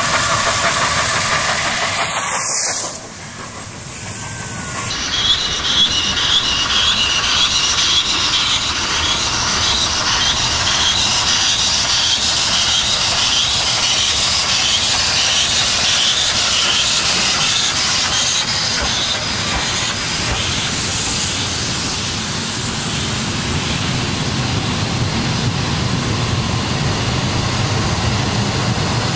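SNCF 141 R 2-8-2 steam locomotive hauling a passenger train past at speed: steam hissing and rapid rhythmic beats, then the coaches rolling by with a low rumble. The sound dips briefly about three seconds in.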